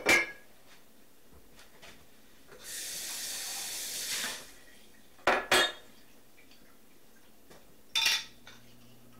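A kitchen sink tap runs briefly for about a second and a half midway. Around it come several sharp clinks and knocks of glassware and dishes being handled and set down on the counter: one at the start, a quick pair about five seconds in, and one more near the end.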